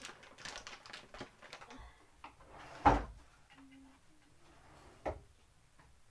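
Metal cookware and utensils being handled: a run of quick light clicks, then one loud knock about three seconds in and a smaller one about five seconds in.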